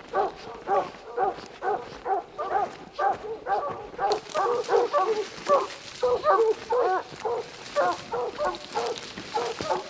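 Hunting hounds baying at a tree, about two to three calls a second with several voices overlapping, louder from about four seconds in: the tree bark of hounds holding a mountain lion treed. A rustle of brush joins the baying from the same point.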